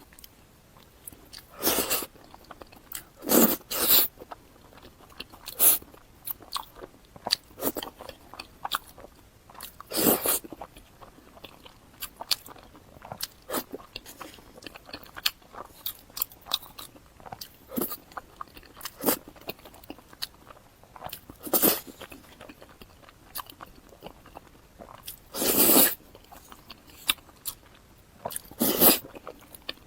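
Close-miked eating of small wontons in sesame paste: continual wet chewing and mouth clicks, broken every few seconds by louder bites.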